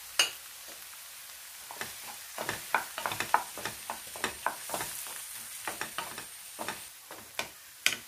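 Tomato pieces frying in a little coconut oil with a steady soft sizzle, while a wooden spatula stirs them, scraping and knocking against the coated pan in quick irregular strokes. There is a sharp knock just after the start and another near the end, with the busiest stirring in between.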